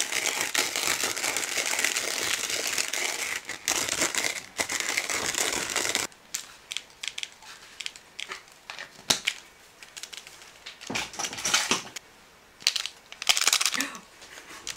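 Small chili-powder sachet from instant ramen crinkling as it is handled. The crinkling is steady for about the first six seconds, then comes in short separate bursts as the packet is shaken, torn and squeezed to tip the powder out.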